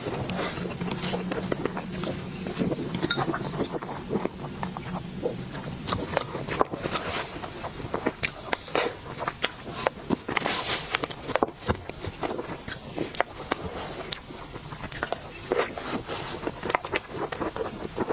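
Close-miked eating sounds of sweets being bitten and chewed: a dense, irregular run of sharp clicks, crunches and crackles, with a faint steady hum during the first couple of seconds.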